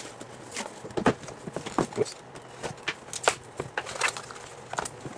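Panini National Treasures trading-card box being opened and handled by hand: a series of irregular light knocks and taps from the cardboard box and lid, with paper rustling as the folded checklist sheets are pulled out.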